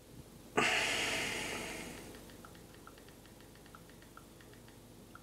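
A heavy breath out starts suddenly about half a second in and fades over about a second and a half. Then come the faint, irregular clicks of a smartphone's keyboard as someone types, about two taps a second.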